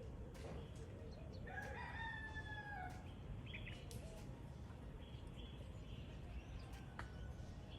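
A rooster crowing once, a call about a second and a half long that starts about a second and a half in and drops a little at the end. Small birds chirp briefly afterwards over a steady low background noise.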